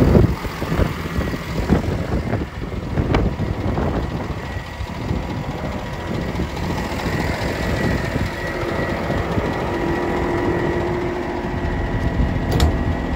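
Ford F-750's Cummins diesel engine idling steadily, heard beside the truck. A loud thump comes right at the start, and a few lighter knocks follow.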